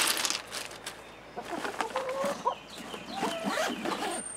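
Ice cubes shifting and rustling as items are pushed into a soft cooler. From about a second and a half in, chickens cluck in short, irregular calls.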